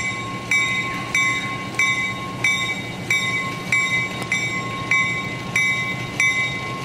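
Locomotive bell ringing steadily, about three strokes every two seconds, over the low running of a 1950 EMD diesel switcher's engine.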